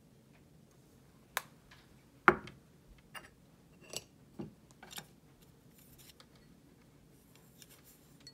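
A handful of sharp clicks and knocks, about six over some four seconds, the loudest about two seconds in: a glass spice jar being handled and set down on a wooden cutting board.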